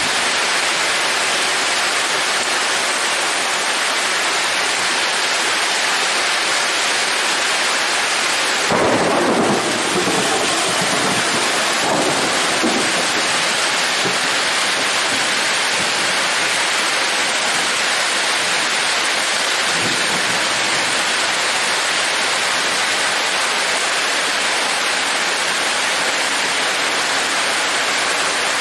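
Heavy tropical rain falling steadily on a road and vegetation, a constant hiss. About nine seconds in a clap of thunder breaks out and rumbles for a few seconds.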